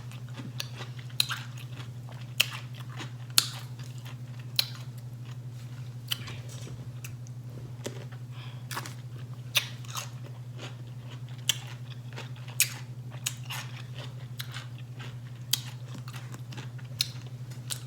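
A person chewing pickles with a mouthful, giving sharp, irregular crunches about once or twice a second, over a steady low hum.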